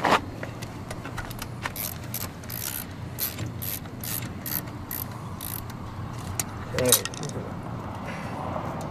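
Ratchet wrench clicking in short strokes as the exhaust flange nuts on a Miniplane Top 80 paramotor engine are tightened, about two to three clicks a second, with a louder metal knock near the start and another about seven seconds in.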